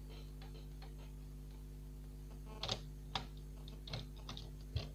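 A small screwdriver and metal parts clicking and tapping on a laptop motherboard as screws are worked near the heatsink. There are several sharp, irregular clicks, starting a little past halfway, over a steady low hum.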